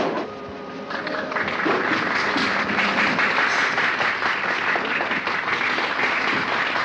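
Theatre audience applauding on an old film soundtrack, swelling in about a second in and then holding steady. A few orchestra notes sound faintly under the applause at first.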